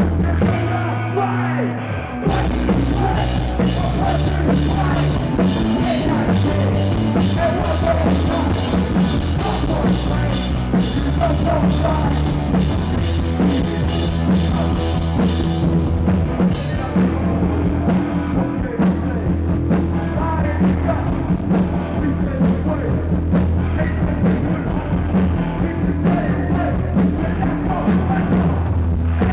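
A punk rock band playing live, with electric guitar, bass guitar and drum kit and a singer. After a brief break of held notes, the full band comes back in about two seconds in.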